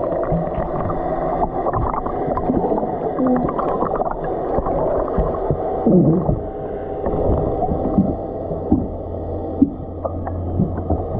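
Muffled gurgling and bubbling water, heard as if underwater, with a steady low hum and a few short sliding squeaks.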